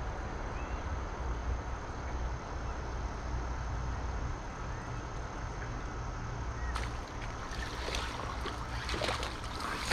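Steady low rumble of wind on the microphone. From about seven seconds in, a busy run of crackling splashes as a bass strikes the Savage Gear 3D Bat topwater lure at the surface.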